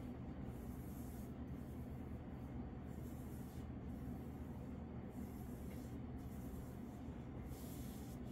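Soft hiss of an ink brush sweeping across paper, in repeated strokes with short breaks about once a second, over a steady low room hum.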